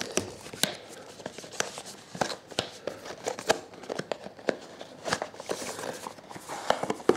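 A box and its packaging being opened and handled: irregular crinkling and rustling with scattered sharp clicks and taps.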